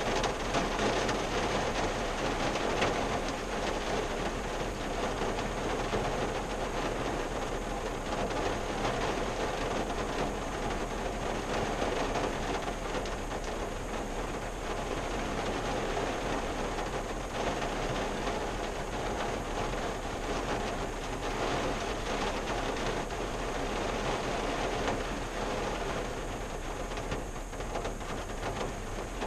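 Steady rain falling on the roof and windshield of a 1974 Valiant, heard from inside the closed cabin.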